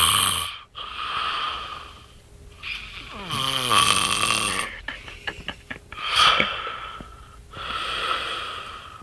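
A man snoring heavily in his sleep, with a rasping snore on each breath about every one to two seconds. About three seconds in, one snore slides down in pitch, and around five seconds there is a quick run of clicking snorts.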